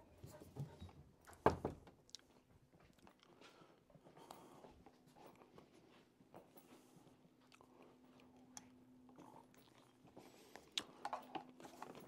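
Footsteps with scattered light knocks and rustles, and one sharper knock about a second and a half in. A faint steady hum comes in about four seconds in.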